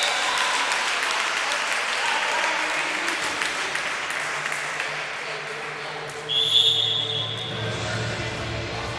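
Spectators applauding and cheering in a sports hall after a handball goal, slowly dying down. About six seconds in, a referee's whistle gives one blast of about a second.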